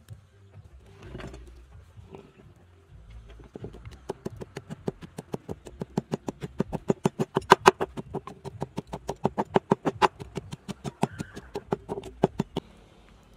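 Wooden pestle pounding sliced lemongrass, turmeric root and red chilies in a wooden mortar to grind curry paste. The strokes are quick, even thuds, about five a second, starting a few seconds in and stopping near the end, after a couple of single knocks at first.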